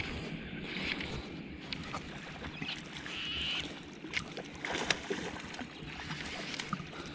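Daiwa baitcasting reel being cranked to wind in a hooked fish: faint ticks and scrapes over a low steady background.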